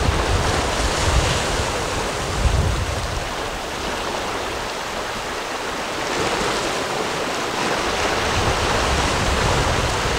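Sea waves washing and breaking against a rocky shoreline in a steady surging wash, with wind rumbling on the microphone, easing for a few seconds midway.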